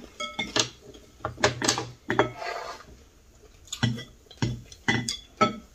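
Chopsticks and spoons clinking and tapping against ceramic bowls while eating: about a dozen scattered sharp clicks, several with a brief ring.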